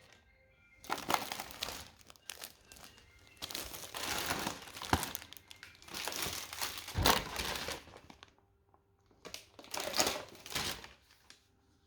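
Crinkly packaging being handled, rustling and crinkling in several bursts with short quiet gaps between.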